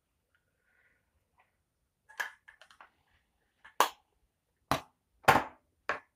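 Makeup items being handled: about five sharp clicks and taps, like cases and caps knocked together and set down on a hard surface, with faint rustling between them; the loudest come in the second half.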